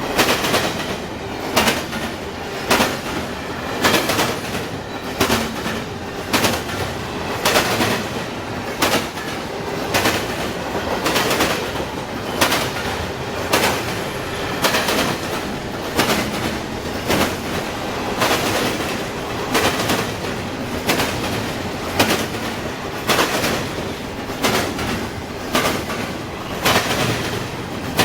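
Freight train cars rolling through a railroad diamond crossing, their wheels banging over the crossing gaps and rail joints in a steady rhythm of sharp clacks, roughly one or two a second.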